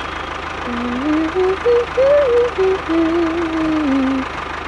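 Engine sound with a steady low chugging, as of a tractor or truck idling. From about a second in to near the end, a short tune of rising and falling stepped notes plays over it.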